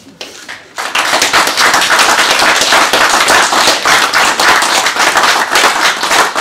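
A small audience applauding: many hands clapping, starting about a second in.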